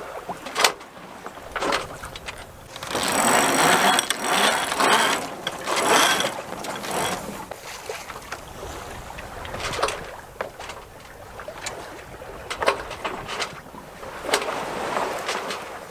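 Water washing along the hull of a sailing yacht under sail, coming in surges, with scattered sharp clicks and knocks from the boat's gear.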